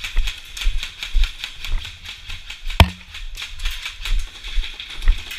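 Rhythmic knocks and rattling, about two a second, typical of a player moving with gear. About three seconds in there is one sharp crack, the loudest sound.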